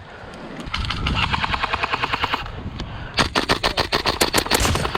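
Airsoft rifles firing full-auto in two rapid bursts of about ten shots a second: a fainter, higher-pitched burst, then a louder, closer one about three seconds in. A low wind rumble runs underneath.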